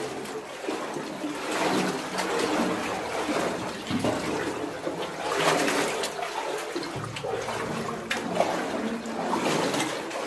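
Muddy floodwater in a mine adit sloshing and splashing as someone wades through it, in uneven surges.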